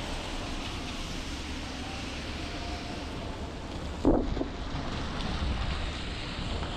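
Outdoor city ambience: a steady rumble of traffic with wind on the microphone, and one short loud sound about four seconds in.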